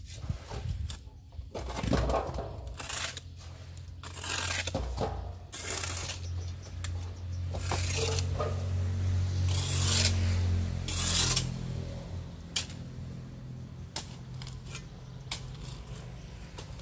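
Long-handled metal shovel scraping and scooping loose soil in repeated separate strokes. A low drone rises in the middle and fades again.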